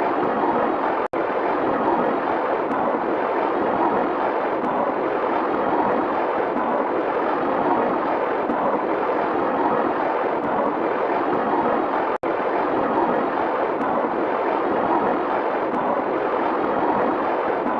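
A steady rushing noise, a looped sound effect with no pitch or rhythm, centred in the middle range. It cuts out for an instant twice, about a second in and again about eleven seconds later, like the seams of a loop.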